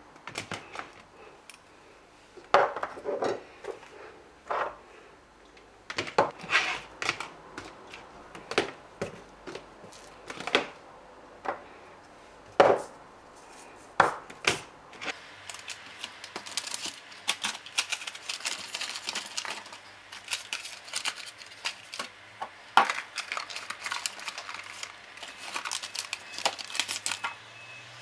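Spice jars and plastic shaker tubs set down one after another into a plastic basket: irregular knocks and clinks, growing quicker and lighter, more like rattling, in the second half.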